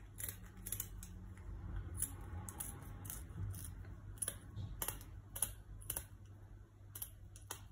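Kitchen scissors snipping through the fins of a slippery catfish: a string of short, irregular clicks and snips, over a low steady hum.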